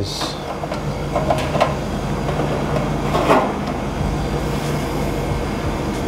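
Rustling and a few light knocks as a coiled black electrical cable is handled inside a humidifier's perforated metal cabinet, over a steady low hum.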